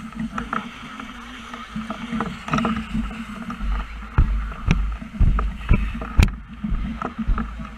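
Low steady rumble with scattered sharp knocks and clicks, the loudest about four and six seconds in.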